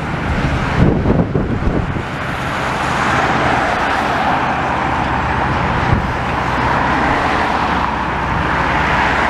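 Steady road traffic noise with a low engine hum, a few dull knocks in the first two seconds and a single sharp tick about six seconds in.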